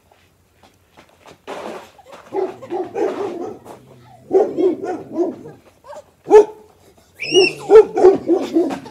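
Dog barking in several quick runs of barks, loudest near the end.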